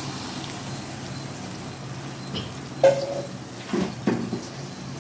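Oil sizzling steadily in a kadai under brinjals coated with masala paste. About three seconds in comes a sharp metal clink with a brief ring, then two duller knocks about a second later, as a utensil meets the pan.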